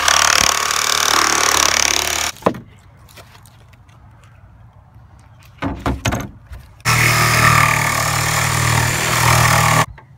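Corded Ryobi jigsaw cutting through the van's fiberglass high-top roof, stopping abruptly about two seconds in. After a pause with a few knocks, a power tool runs again steadily for about three seconds and cuts off suddenly.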